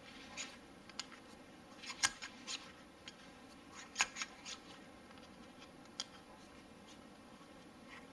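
Faint light scraping and a few scattered sharp clicks as a Glock cleaning rod with cloth patches is worked through a Glock 19's 9mm barrel. The loudest clicks come about two and four seconds in.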